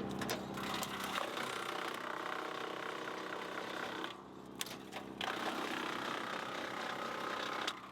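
Woodland Mills wood chipper running, its engine humming steadily while the chipper chatters and chews at a branch with a wide Y fork that it cannot pull through. The chewing drops away briefly about four seconds in, then starts again.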